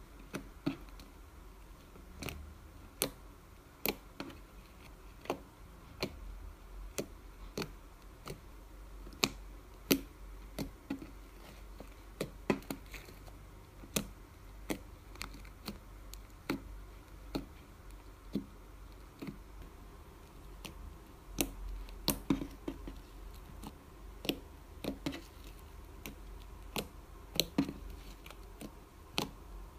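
White milk slime being poked and squeezed by fingers, giving sharp, irregular clicking pops as trapped air bursts, about one or two a second.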